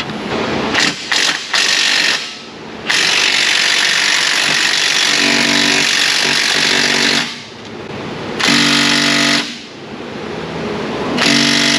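Milwaukee mid-torque cordless impact wrench hammering on a suspension fastener in several bursts: a few short ones, then one long run of about four seconds, then two shorter ones. The fastener won't come free; it feels as though a nut is turning on the far side.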